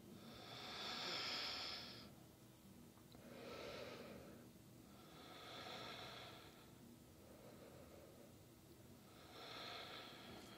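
A woman breathing slowly and deeply, faint: about four soft breaths a few seconds apart, the first the longest.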